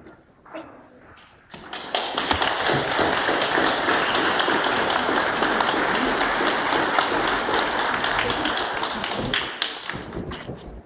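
Congregation applauding: many people clapping, starting about a second and a half in, holding steady, and dying away near the end.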